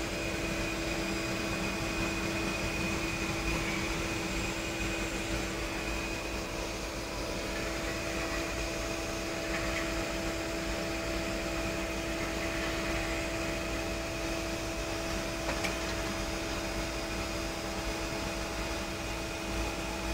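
Steady running noise inside an airliner's cockpit while it taxis to its parking bay: an even hum with a few constant tones held throughout.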